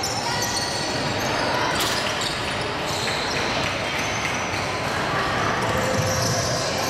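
Basketball game sounds on a hardwood gym floor: the ball bouncing as it is dribbled, many short high squeaks from sneakers, and children's voices calling out. There is one sharp knock about two seconds in.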